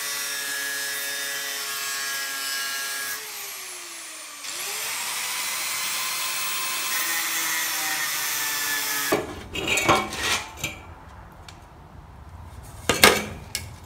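Angle grinder cutting into a steel exhaust muffler casing, its motor whine falling in pitch about three seconds in and climbing back up a second later, then stopping at about nine seconds. Several sharp metal clanks and knocks follow as the cut-open muffler shell is pulled apart, the loudest near the end.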